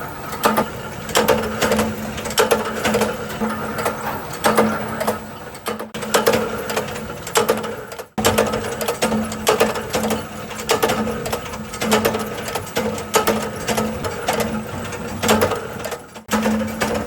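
A machine running with a regular mechanical clatter of strokes and clicks, a little over one a second, over a steady hum, broken by a few abrupt cuts.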